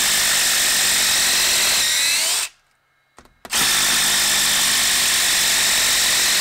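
DeWalt XR 20V cordless quarter-inch impact driver hammering long screws out of a log. The first run rises in pitch and stops about two and a half seconds in as the screw comes free. After a short pause and a click, it starts again on the second screw.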